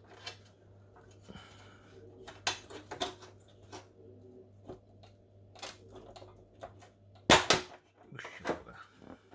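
Scattered sharp metal clicks and knocks as an oven door hinge is worked loose and lifted out, the loudest a pair of sharp knocks about seven seconds in.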